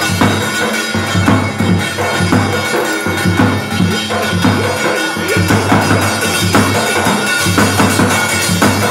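Dance music playing with a steady drum beat over a heavy bass line.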